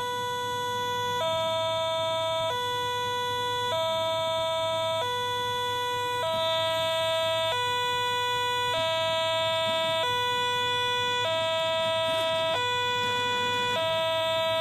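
Two-tone electronic warning alarm of a miniature railway level crossing, switching back and forth between a lower and a higher tone about every one and a quarter seconds, over a steady higher tone.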